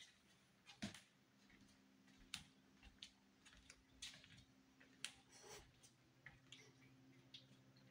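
Near silence with faint, irregular clicks and ticks and a faint low steady hum.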